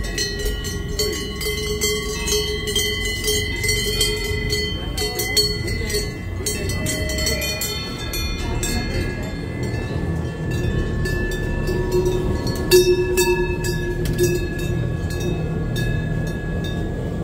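Cowbells on grazing cows clanking and ringing: several bells at different pitches, each strike ringing on. The clanking is busiest in the first half and thins out later, over a low rumble.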